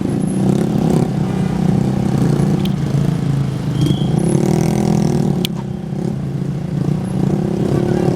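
A bus engine running close by, its pitch rising and falling a little about halfway through.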